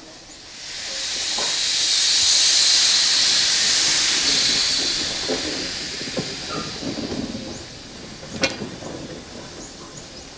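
Steam hissing loudly from a 5-inch gauge live steam model of an NSW 38 class locomotive. The hiss swells over about a second, holds, then fades away after about six seconds. A single sharp click follows near the end.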